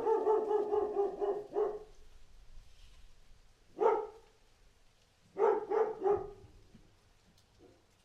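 A dog barking: a long drawn-out bark at the start, a single bark about four seconds in, and a quick run of barks around five and a half seconds in.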